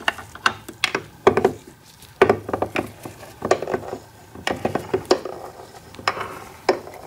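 Irregular metallic clicks and clinks of two adjustable wrenches on the nut and forcing bolt of a crankcase splitting tool, as the bolt is turned a little at a time to press motorcycle engine case halves apart.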